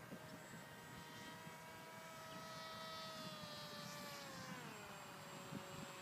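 Brushless out-runner electric motor and 10-inch propeller of a radio-controlled model plane in flight, heard as a faint, steady whine. About four seconds in, the pitch drops.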